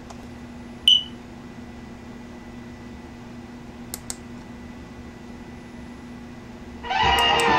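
Quiet room with a steady electrical hum, broken by one short, loud, high beep about a second in and two faint clicks around four seconds. Near the end, loud music suddenly starts playing.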